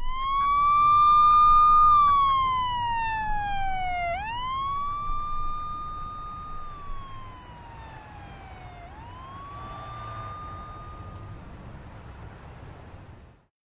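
A siren wailing in three slow cycles: each time the pitch climbs quickly, levels off and then slides down over a couple of seconds. It fades away over a low background rumble and cuts off near the end.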